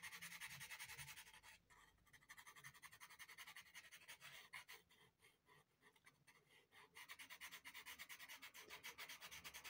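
Faint scratching of a Derwent pastel pencil on Clairefontaine Pastelmat, a surface like fine sandpaper, in quick back-and-forth shading strokes, about five or six a second. The strokes thin out for a few seconds in the middle and pick up again near the end.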